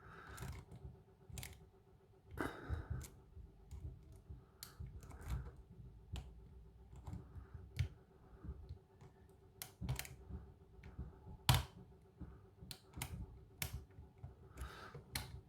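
Light, irregular clicks and scrapes of a short hook pick and tension wrenches working the pins of a pin-tumbler lock cylinder during single-pin picking, with one sharper click a little past the middle.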